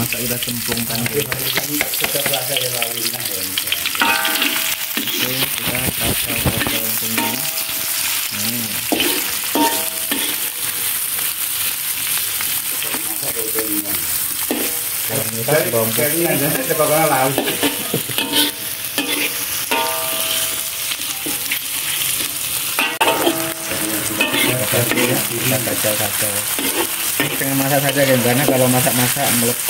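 Sliced shallots and garlic sizzling in hot oil in an aluminium wok, stirred with a metal spatula. The frying hiss is loud and steady throughout.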